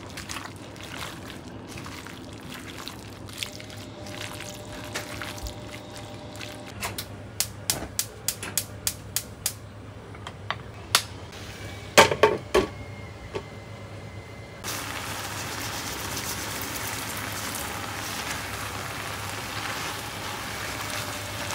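A run of sharp clinks and clicks, then water starts running about two-thirds of the way in and keeps going steadily.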